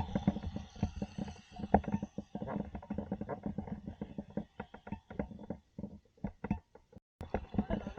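Traxxas Slash RC car driving on hard 3D-printed plastic drift tires: a rough, irregular rattling and rumbling. The sound cuts out briefly about seven seconds in.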